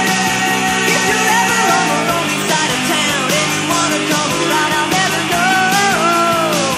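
1980s album-oriented rock (AOR) song playing: full band with drums under a lead line that bends and slides in pitch.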